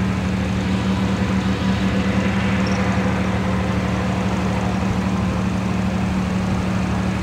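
Chieftain tank's Leyland L60 two-stroke multifuel diesel engine running steadily as the tank drives slowly along, a constant low drone with a throbbing pulse.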